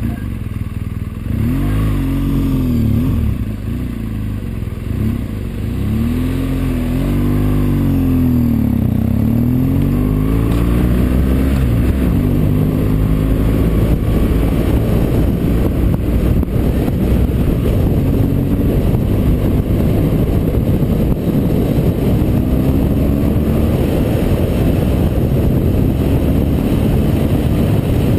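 BMW motorcycle engine pulling away and accelerating through the gears, its pitch rising and dropping with each shift over the first dozen seconds, then running at a steady cruising speed with road and wind noise.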